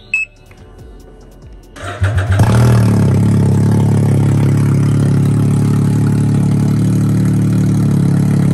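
Can-Am Ryker engine started with its exhaust system removed: a short beep as the start button is pressed, a brief crank about two seconds in, then the engine catches and idles steadily, super loud straight out of the open exhaust port.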